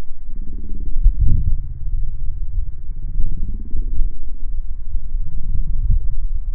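An engine running, its pitch slowly rising and falling, over a low rumble, with two heavier low thuds, one about a second in and one near the end.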